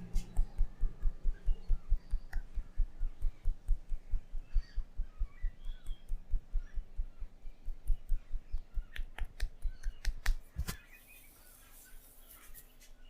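Barber's hands tapping and patting rhythmically in a head massage, dull thumps about four to five a second, with a few sharp clicks just before the tapping stops about ten and a half seconds in.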